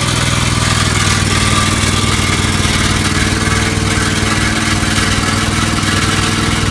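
Kawasaki FS541V V-twin engine of a Scag commercial walk-behind mower running steadily, just brought to life after a hard cold start on a freezing morning.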